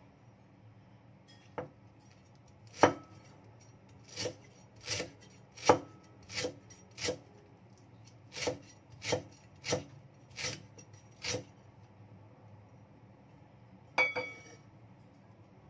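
Knife chopping lemongrass stalks on a thick wooden chopping board: a dozen or so separate, unhurried chops, with a pause before one more near the end.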